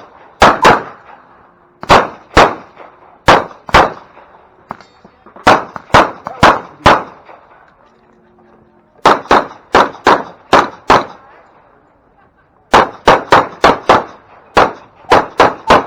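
Semi-automatic pistol fired in rapid pairs and strings of shots, with short pauses of one to two seconds between groups as the shooter moves between targets.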